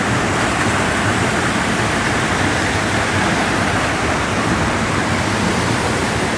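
Creek water rushing steadily over rocks, a loud, even hiss.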